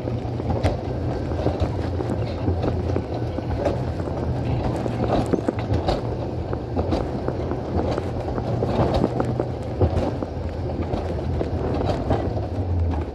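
Alpine coaster sled running fast along its tubular steel rails: a steady low rumble from the wheels with frequent rattles and clicks, mixed with wind on the microphone. The rumble drops off near the end.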